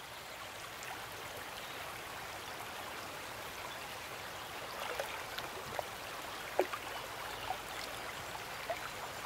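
Shallow river water running over a gravel bed: a steady rushing, with small watery plinks and gurgles scattered through it from about five seconds in.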